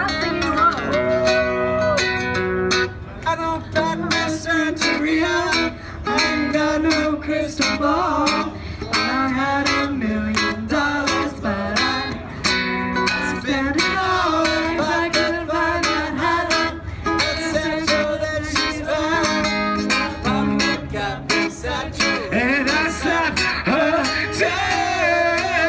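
A woman singing a pop-punk song into a microphone over a strummed ukulele. Near the end a man's voice takes over the singing.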